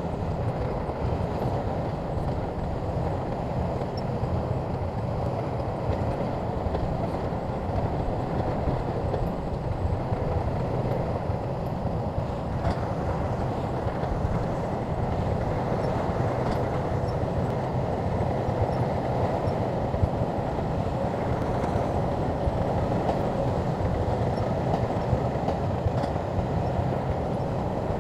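Shantui crawler bulldozer's diesel engine running steadily under load, with a few faint clanks.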